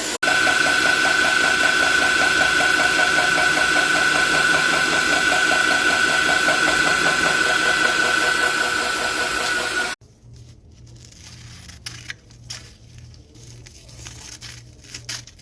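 A powered sharpening machine's motor running steadily with a high whine and a fast rhythmic chatter, then cutting off suddenly about ten seconds in. After it, a series of light clicks and snips of scissors.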